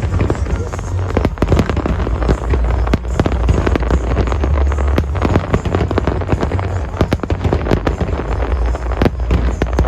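Aerial fireworks bursting in rapid succession: many sharp bangs and crackles overlapping throughout, over a steady low rumble.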